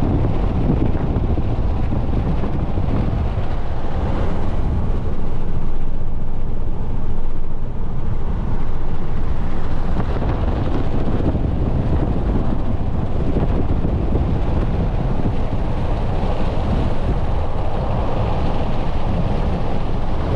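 Steady road and wind noise in the cabin of a 2024 Toyota Corolla cruising at highway speed: a continuous low tyre rumble under a rushing hiss.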